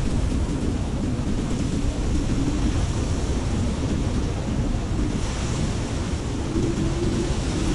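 Snowstorm wind blowing steadily with a deep low rumble; a gust brings a brighter hiss about five seconds in.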